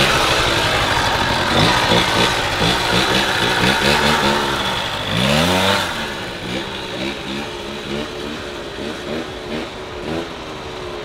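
Suzuki LT80 quad's small two-stroke single revving in quick, repeated blips as the rider wheelies it away, with one long rev up and down about five seconds in, then growing fainter as the quad moves off down the street.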